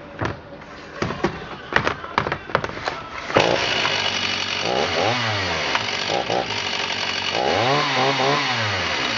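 Stihl 028 chainsaw's 47cc two-stroke engine being pull-started: several sharp rattling pulls, then it catches a little over three seconds in and runs steadily. It is revved twice, the pitch rising and falling each time.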